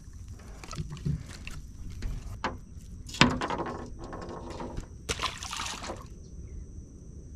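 Water sloshing and trickling against a boat, broken by a few sharp knocks, the loudest a little after three seconds, and a short rush of splash-like noise about five seconds in.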